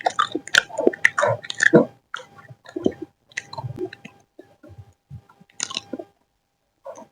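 Close-miked chewing and biting of food, irregular wet clicks and smacks, busiest in the first two seconds and then sparser, with one more cluster near the end.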